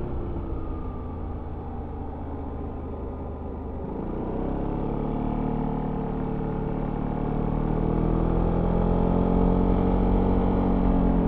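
Yamaha XMAX 300 scooter's single-cylinder four-stroke engine with its stock exhaust, heard on board. It runs quieter with the throttle eased for the first few seconds, then picks up about four seconds in, rising in pitch and growing steadily louder under acceleration.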